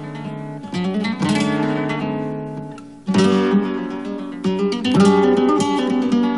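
Solo acoustic guitar music in a flamenco style, strummed and plucked chords left to ring; the sound dies away and a fresh loud strum comes in about halfway through.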